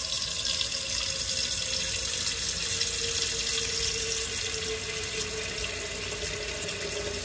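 Kitchen tap running a steady stream of water into a saucepan in a stainless steel sink, filling the pot.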